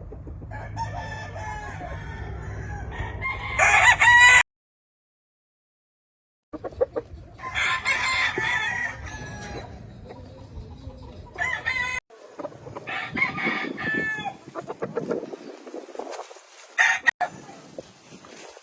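Gamefowl roosters crowing, several crows in turn, over a few spliced takes; the loudest crow comes about four seconds in and cuts off into about two seconds of dead silence.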